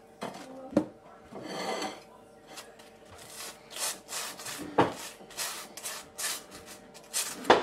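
A table knife scraping butter across crisp toast in a run of short rasping strokes, with a few sharp clicks in between.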